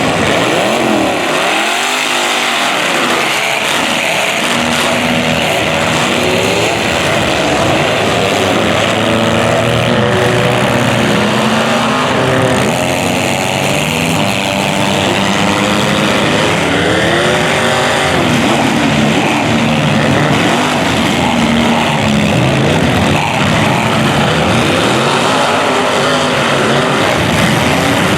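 Several demolition derby car engines running at once, loud and continuous, each pitch rising and falling as the drivers rev and let off.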